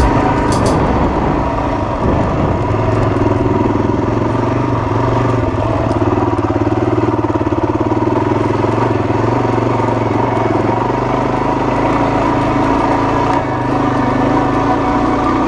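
Suzuki DRZ400's single-cylinder four-stroke engine running at a steady, moderate throttle as the dirt bike is ridden along a trail. The throttle eases briefly about thirteen seconds in.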